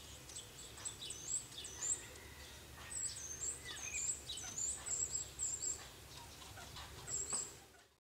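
Irregular sharp knocks of a Syrian woodpecker pecking at a window frame, with a small bird's high, thin twittering song running over them in repeated phrases. It all fades out near the end.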